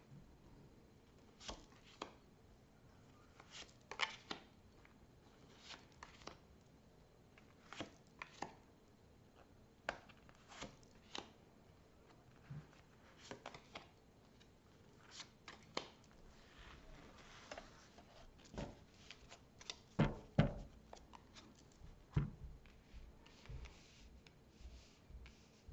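Tarot cards being handled on a table: irregular soft snaps and taps of the cards being shuffled and laid down, with a few louder knocks about twenty seconds in.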